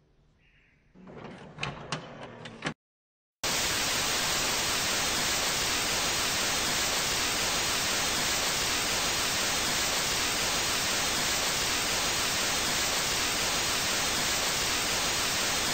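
Analog TV static: a loud, steady hiss of white noise that starts suddenly about three and a half seconds in. Before it come a few clicks and clunks, then a moment of silence.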